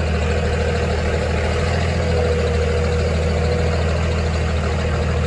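A vehicle's engine running steadily, a constant low hum with a faint steady whine above it.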